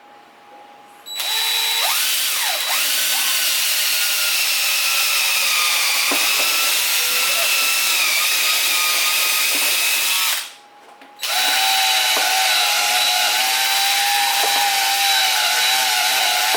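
Power drill with a 5/16-inch bit boring the handle screw holes through a wooden drawer front: one run of about nine seconds that starts about a second in, a brief stop, then a second run of about six seconds.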